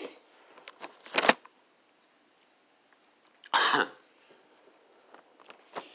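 A person coughing: two short coughs, about a second in and again about three and a half seconds in, with a few faint clicks between.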